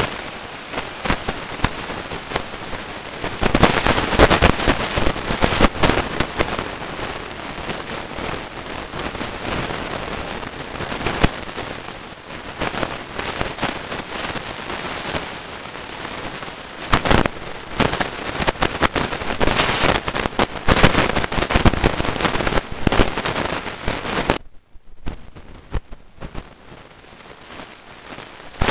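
Rain and wind buffeting a handheld camera's microphone: a dense, irregular crackling that swells and fades, cutting out briefly near the end.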